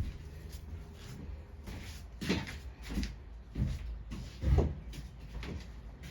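Small-engine carburetor parts being handled and set down: a few separate knocks and clatters, the loudest about four and a half seconds in.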